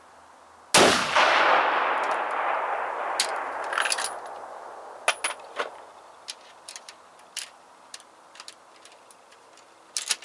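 A single rifle shot about a second in, its report followed by a long echo that fades over about four seconds. A scatter of small sharp clicks follows as the rifle is handled, with a quick cluster of them near the end.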